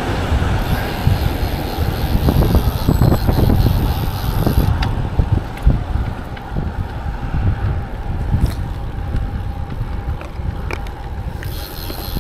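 Wind buffeting the microphone of a DJI Osmo Action 4 action camera during a road-bike ride, an uneven low rumble, with a few faint clicks.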